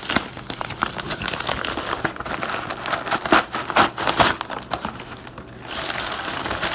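Packaging being opened by hand: crinkling and rustling with a dense stream of small crackles, easing off briefly about five seconds in.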